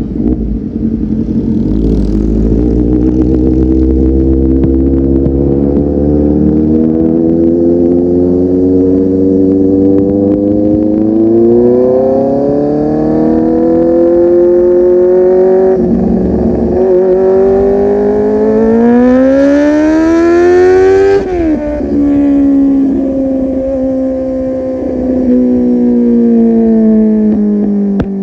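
Kawasaki Z800's inline-four engine through a full-system aftermarket exhaust, pulling hard with the revs climbing steadily, briefly interrupted partway. About three quarters of the way through the throttle shuts at peak revs, and the engine note falls away slowly as the bike decelerates.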